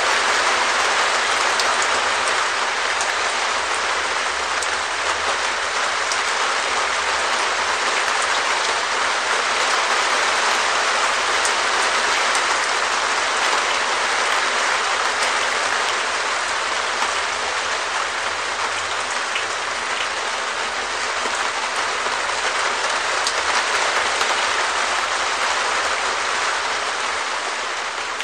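Steady rain falling on a perspex shed roof: a dense, even patter with individual drops ticking sharply through it.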